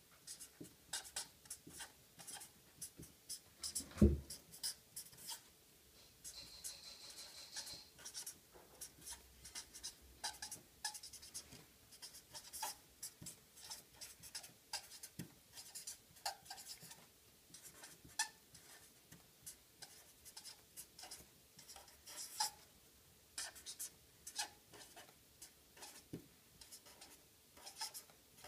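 Marker pen writing on paper: many short scratching strokes in quick succession, with a longer squeaky stroke about six seconds in. A single dull thump about four seconds in is the loudest moment.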